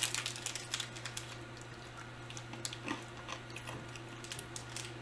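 Faint, scattered clicks and crinkles of a candy pack of hard rock-sugar pieces being handled, denser in the first second, over a steady low hum.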